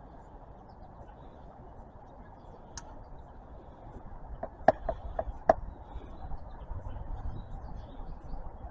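Hand-work noise on the oil filter cap as its old gasket is pried off: a single faint click, then a quick cluster of four or five sharp clicks and taps about halfway through, over a steady low background hiss.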